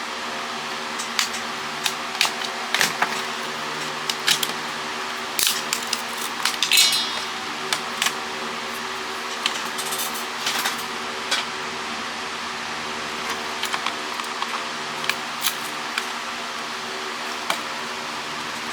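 Scattered clicks, taps and clatter of plastic phone casings and small parts being handled and pried apart, over a steady hum. A brief rattling burst about seven seconds in is the loudest.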